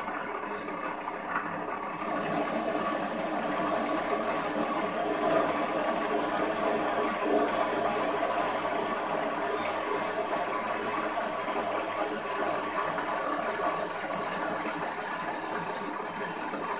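CNC milling machine running, a steady mechanical din with a high, steady spindle whine that sets in suddenly about two seconds in and holds.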